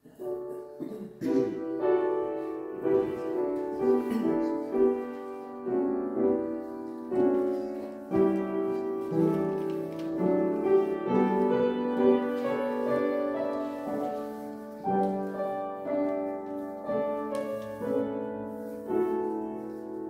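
Piano playing a slow passage of held chords, the notes changing about once a second.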